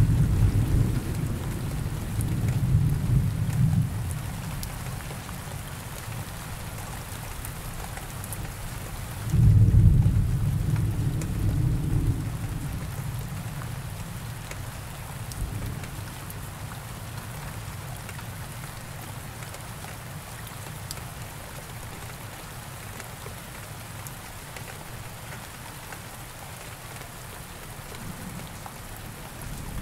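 Thunderstorm: steady rain hissing throughout, with two deep rolls of thunder, the first right at the start and lasting about four seconds, the second breaking sharply about nine seconds in and rumbling for about three seconds.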